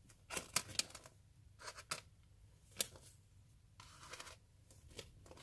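Faint taps and light scuffs of soft gummy candies being pushed around and set down on a tabletop by hand, a handful of short clicks spread unevenly through the few seconds.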